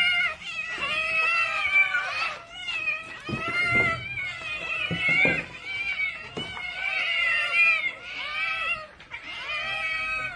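Domestic cats meowing insistently: a string of about seven long, drawn-out calls, one after another with barely a pause. The calls are cats begging to be fed.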